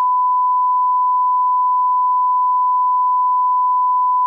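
Steady 1 kHz sine-wave line-up tone, the reference tone that accompanies SMPTE colour bars and is used to set audio levels.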